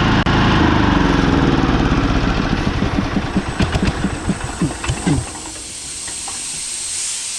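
Small gasoline engine of an air compressor running under a hiss of air. About five seconds in, the engine's beat slows and dies away as it shuts down, leaving a steady hiss of air.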